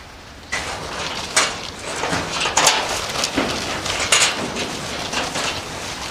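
Heavy rain pouring down, a steady hiss that comes in about half a second in, with a few sharp knocks or clatters over it.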